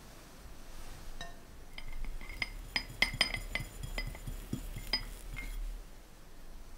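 About a dozen light, ringing clinks in quick succession through the middle of the stretch: a metal offset spatula knocking against the cake plate while the cream at the side of the cake is smoothed.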